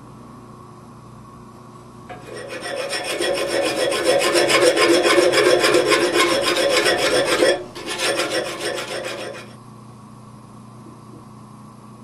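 Hand file rasping along a forged iron latch bar clamped in a bench vise: cleanup filing of the rough forging to flatten it and take off rough edges. The filing starts about two seconds in and runs steadily for about five seconds, breaks off briefly, then goes on for about two more seconds before stopping.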